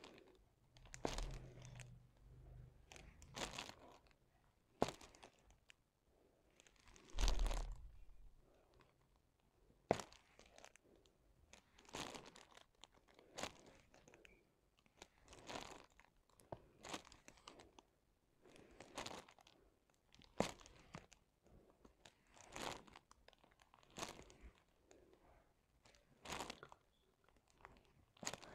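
Faint, scattered taps and crinkles of a diamond-painting drill pen picking up resin drills and pressing them onto the adhesive canvas, with its plastic cover film rustling, about one small click every second or two. There are two longer rustles with a dull bump about one and seven seconds in.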